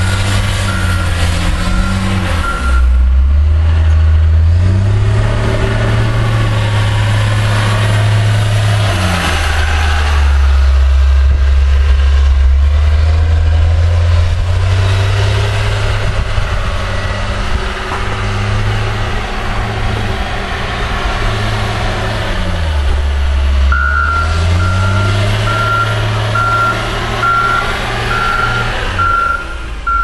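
John Deere wheel loader's diesel engine running with a snow pusher, its speed rising and falling again and again as it works. Its reverse alarm beeps steadily for the first couple of seconds and again through the last six seconds.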